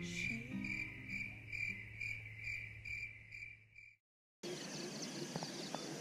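Night insects chirping: a high pulsing trill, about two chirps a second, over a faint tune of low notes. About four seconds in it cuts off to a brief silence, then to outdoor morning background noise.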